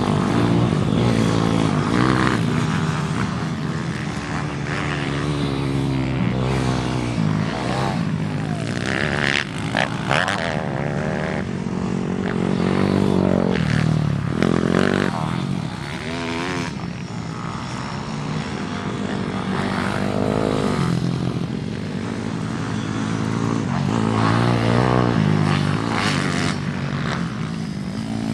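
Pit bike engine revving hard while the bike is ridden, its pitch repeatedly climbing and dropping with throttle and gear changes. It grows louder and quieter as the bike moves nearer and farther away.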